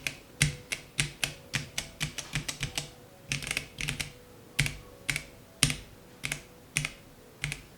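Typing on a Gamakay K66 compact mechanical keyboard with hot-swappable Gateron switches: an irregular stream of sharp keystroke clacks, with a quicker run of strokes about two seconds in.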